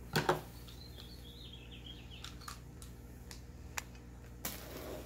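Handling sounds of a box cutter and a cardboard shipping box: a thump at the start, a few sharp clicks as the retractable utility knife is readied, then scraping noise near the end as the blade starts on the box's packing tape.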